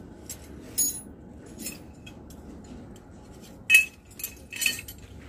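Metal hand tools clinking against each other: a handful of short, sharp clinks, the loudest about three and a half seconds in.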